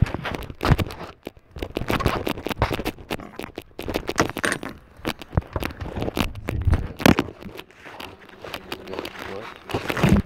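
Irregular scraping and rubbing close to the microphone, broken by scattered sharp clicks and crackles.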